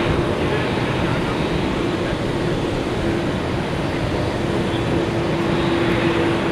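Airbus A380 jet engines running at taxi power, a steady rush of noise with a constant hum.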